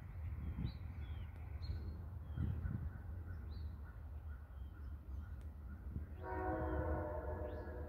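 Horn of CSX locomotive 943, leading a freight train, sounding faintly from down the line in one held blast that begins about six seconds in; small birds chirp before it.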